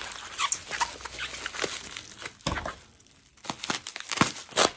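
Bubble wrap and packing material being crinkled and pulled apart by hand: irregular crackling with a brief lull about three seconds in, then sharp snaps near the end.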